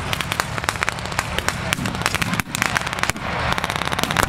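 Rapid, overlapping blank gunfire from reenactors' rifles, a dense crackle of many sharp shots over a steady low rumble.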